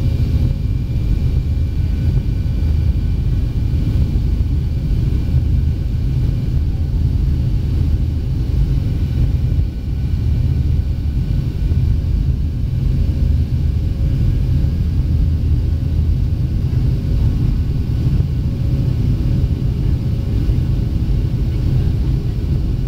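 Cabin noise of a Boeing 737-700 climbing after takeoff, heard from a window seat over the wing: a steady low rumble from its CFM56 engines and the airflow, with a faint steady whine on top.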